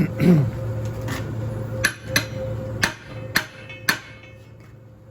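Five sharp metal-on-metal clanks, each with a short ring, spaced about half a second apart, from steel tools striking the welded-on socket and nut of a seized prop-shaft coupling. A loud, low, wavering sound comes right at the start, and a steady hum runs underneath.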